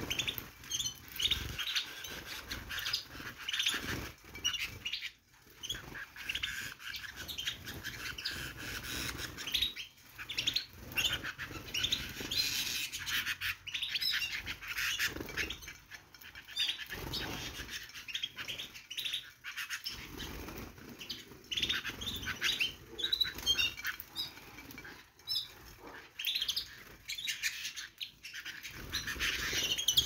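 A flock of canaries chirping and fluttering their wings as they crowd onto a plate to feed on pumpkin.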